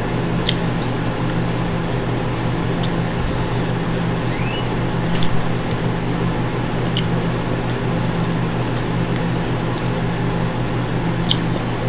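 A person chewing food close to the microphone, with scattered small wet mouth clicks, over a steady low electrical hum.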